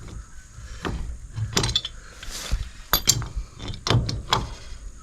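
A series of sharp metallic clicks and clinks, about half a dozen spread irregularly, from tools being worked on the head valve fitting of a rainwater tank.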